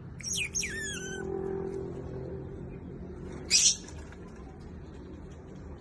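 Asian small-clawed otter giving a quick run of high, squeaky chirps that fall in pitch, then a short hiss about three and a half seconds in.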